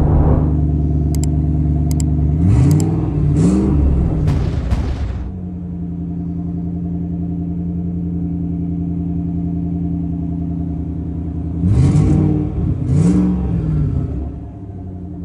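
Built 2013 Mustang GT 5.0 Coyote V8, running on a FuelTech standalone ECU during tuning, heard from inside the car. It idles on a fast idle that settles lower about five seconds in. The throttle is blipped twice in quick succession early on and twice again near the end.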